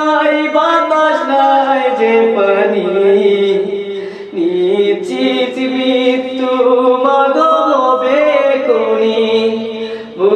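A young man singing unaccompanied in Bengali, a folk-style song about his mother, in long held, wavering phrases with a short break for breath about four seconds in.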